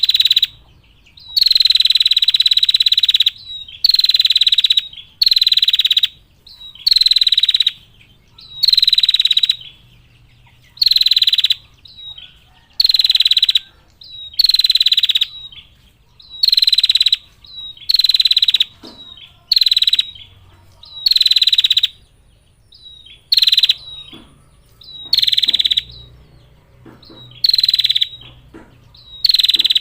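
Female prinia (prenjak) giving its long rattling 'ngetir' trill: a high, buzzy call about a second long, repeated every two seconds or so, some fifteen times.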